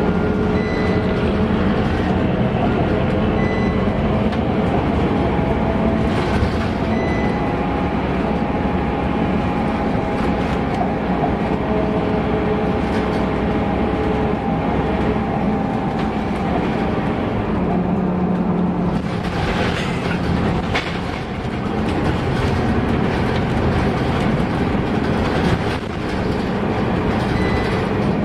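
Scania K230UB bus's diesel engine and ZF Ecomat automatic gearbox heard from inside the passenger cabin while the bus drives at speed: a steady drone of engine, transmission and road noise with a faint steady whine. A brief louder rushing noise comes about twenty seconds in.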